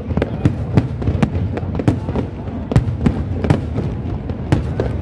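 Aerial firework shells bursting in quick, irregular succession: sharp bangs about two to three times a second over a steady low rumble.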